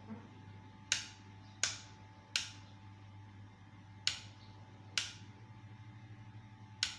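Six sharp clicks at uneven intervals, each with a short ringing tail, over a steady low hum.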